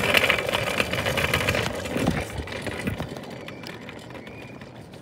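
Hoverboard go-kart's small hard wheels rolling over rough asphalt: a dense rattling road rumble that fades away over the first three seconds as the kart slows to a stop.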